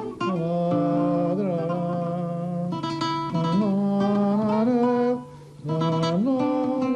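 A song: a man singing long held notes over acoustic guitar, with a brief break about five seconds in.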